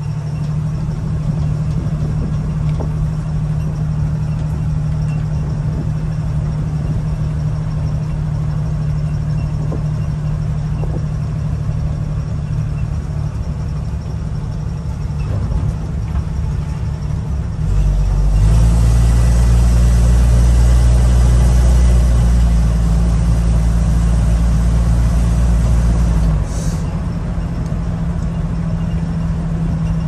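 1975 AM General DJ-5D postal Jeep's engine running steadily as it is driven down a hill, heard from inside the cab, with a louder low rumble and rush for about nine seconds past the middle. The engine is running well, without the intermittent noise under load that the owner is chasing.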